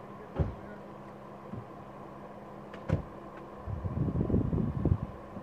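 Off-road truck engine running steadily, with two sharp clunks a couple of seconds apart; a little past halfway, wind starts buffeting the microphone in irregular gusts.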